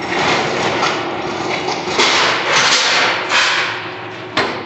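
Poreba TR-70B engine lathe running under power: a steady hum under loud gear clatter that swells and fades several times. A single sharp clack near the end.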